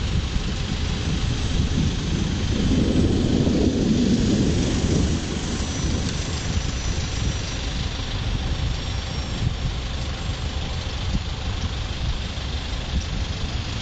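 Wind buffeting the microphone: a steady low rumble that swells for a couple of seconds a few seconds in.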